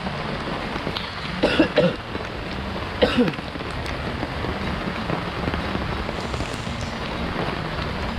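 Steady heavy rain falling. Two short pitched sounds that fall in pitch cut through it, about one and a half and three seconds in.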